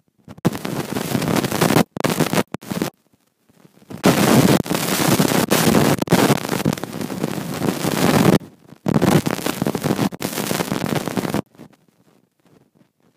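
Wind buffeting a phone's microphone: loud gusts of noise that cut in and out abruptly, with short breaks near two seconds in and around three to four seconds in, dying away about eleven and a half seconds in.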